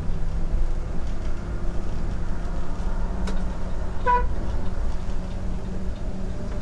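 Volvo bus's diesel engine drone heard from inside the driver's cabin while overtaking a truck, with one short horn toot about four seconds in and a single sharp click a little before it.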